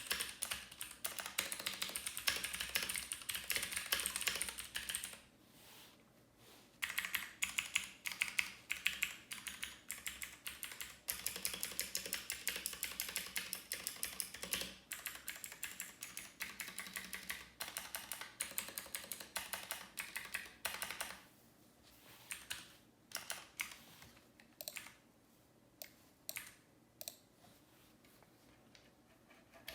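Typing on a mechanical keyboard: a fast run of key clicks, a short break about five seconds in, more fast typing, then scattered single key presses over the last third.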